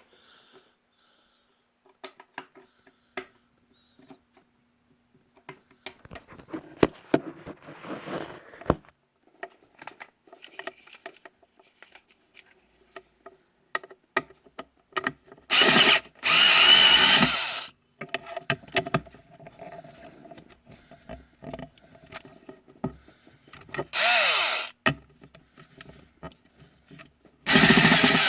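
Power drill run in three short bursts, with small clicks and handling noise between them.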